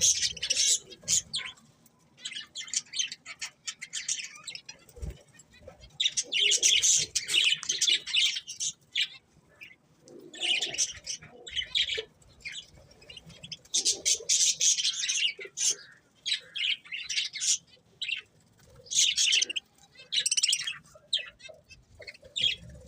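Budgerigars chirping in repeated bouts of one to two seconds, with short pauses between them.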